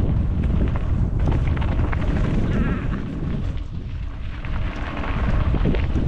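Wind buffeting a GoPro's microphone during a fast mountain-bike descent of a dirt single-track trail, over the rumble of the tyres and the knocks and rattles of the bike on rough ground. It eases for a moment about halfway, then picks up again.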